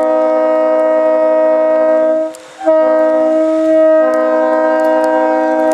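Leslie RS-3L three-chime locomotive air horn, unrestored and blown on compressor air through a ball valve, sounding a steady multi-note chord. It cuts off a little over two seconds in and is blown again a moment later in a second long blast.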